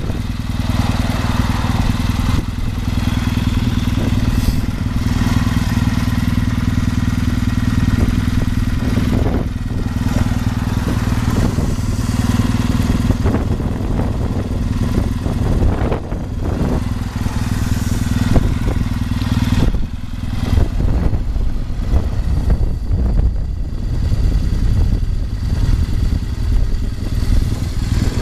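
Kawasaki W650's air-cooled vertical-twin engine idling steadily through an early-type Nasert Trad aftermarket muffler with no catalytic converter. The exhaust note is deep and even.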